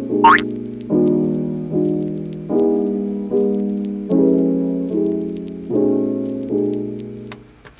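Soft piano music playing slow sustained chords, a new chord about every second, with a short rising swoop sound just after the start; the music fades out near the end.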